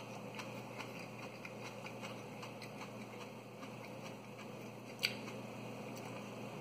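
Quiet mouth sounds of someone chewing a raw habanero pepper: faint, irregular small clicks of teeth and lips over a low steady hum, with one sharper click about five seconds in.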